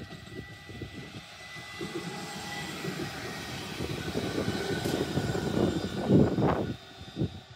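Nottingham Express Transit electric tram passing close by on the bridge's rail track: a rumble of wheels on rails with a steady high whine. The sound grows louder as the tram comes near, peaks about six seconds in, then drops away sharply.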